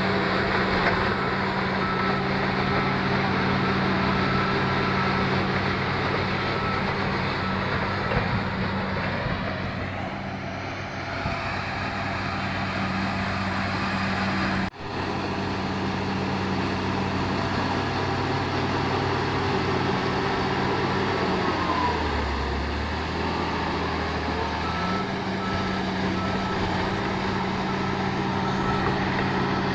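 Diesel engine of heavy mining earthmoving machinery running steadily, with a reversing alarm beeping in the first several seconds and again near the end. About three quarters through, the engine drops to a lower pitch for a few seconds, then picks back up; there is a brief dropout about halfway.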